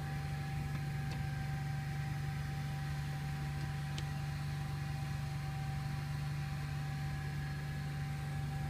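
Onan Marquis 7,000-watt gasoline RV generator, which the owner believes has a small twin-cylinder engine, running steadily at constant speed with no load while still warming up, a low, even hum with a thin steady whine above it. A single faint click about halfway through.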